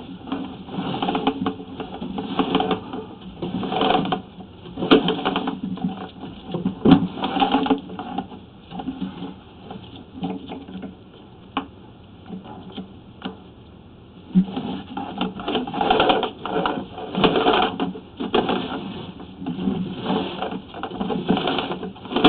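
Sewer inspection camera's push cable and reel being pulled back by hand, rattling and clicking irregularly. The noise eases to a few scattered clicks for several seconds midway, then picks up again.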